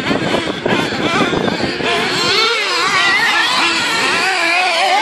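Several 1/8 scale radio-controlled racing buggies running around the track. Their high buzzing motors overlap, with the pitch constantly rising and falling as they accelerate and brake.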